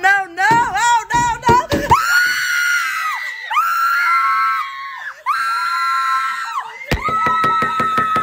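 A person screaming: quick rising-and-falling cries, then from about two seconds in four long high-pitched screams, one after another.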